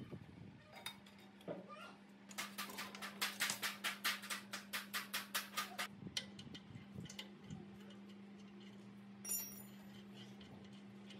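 Hand ratchet wrench clicking rapidly and evenly, about seven clicks a second, for some three and a half seconds starting about two seconds in, over a steady low hum. A single short metallic clink comes near the end.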